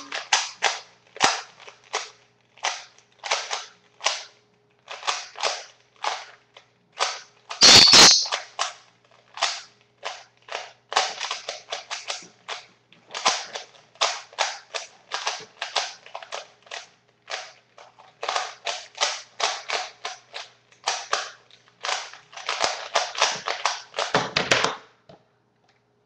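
Plastic 3x3 Rubik's cube being turned fast in the hands during a speed solve: a quick, irregular run of clicks and clacks, with one louder clack about eight seconds in. Near the end the turning stops with a heavier knock as the solved cube is set down.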